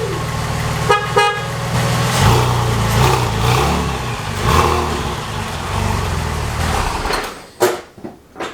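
Porsche 996 Turbo's twin-turbo flat-six running, freshly restarted after sitting hot for an hour. It fired straight up, a sign that the long-cranking hard start, which the owner traced to fuel pressure, is fixed. There is a brief horn-like toot about a second in, and the engine's pitch rises and falls a few times before the engine sound drops away about seven seconds in, leaving a few clicks and knocks.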